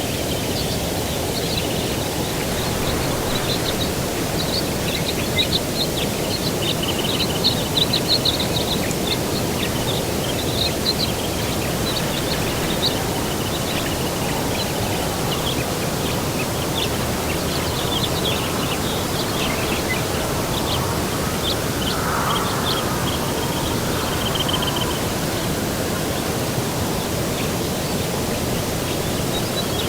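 Small songbirds chirping and giving short trills in quick high notes, busiest in the first half, over a steady low rushing noise.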